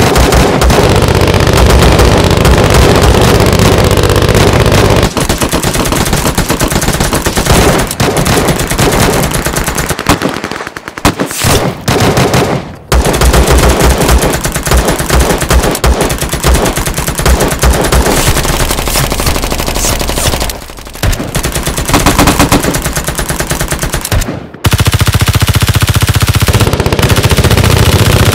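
Sustained automatic gunfire from assault rifles and machine guns: dense, rapid strings of shots that overlap, broken by a few short lulls.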